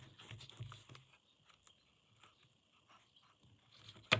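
Small screwdriver bits being swapped out of a bit set: faint irregular clicks and rattles of metal and plastic, ending in one sharp click near the end.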